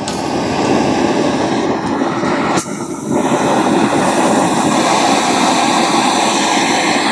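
Oxy-fuel torch flame burning with a steady rushing hiss, with a short dip a little under three seconds in. The flame is preheating steel before it is welded.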